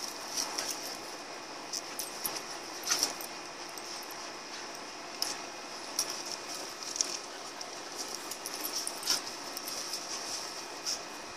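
A Siberian husky and a young Rottweiler play-wrestling: light scuffling, broken every second or two by short sharp clinks of the Rottweiler's metal tie-out chain and collar jingling.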